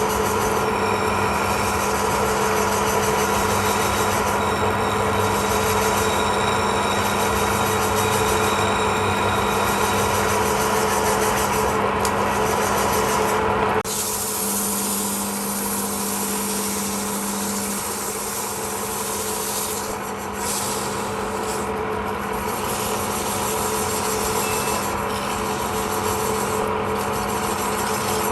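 Wood lathe running with a steady motor hum while a turning tool cuts the spinning wood, a continuous rough scraping over the hum. The sound changes abruptly about halfway through and then carries on.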